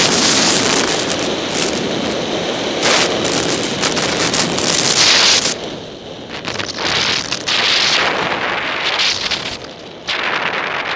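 Wind rushing over the microphone at speed, with the hiss and scrape of skis carving through snow swelling with each turn. The noise drops briefly about six seconds in and again just before the end.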